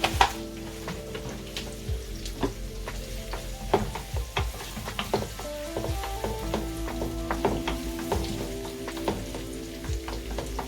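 Chopped onions, garlic and dried thyme sizzling in oil in a pot while being stirred, with a spoon clicking and scraping against the pot many times.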